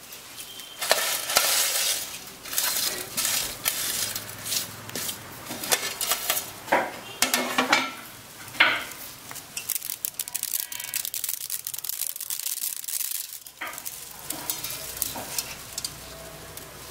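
Dry hakka noodles crackling and snapping as hands break the bundles apart and drop them into a metal pot, in loud bursts for most of the first nine seconds, then fainter rustling.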